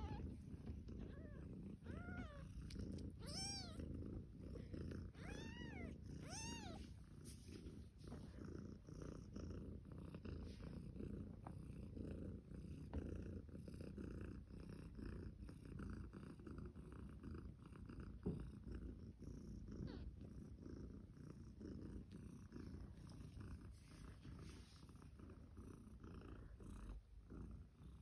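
Mother cat purring steadily, with about six short, high-pitched newborn kitten mews in the first seven seconds.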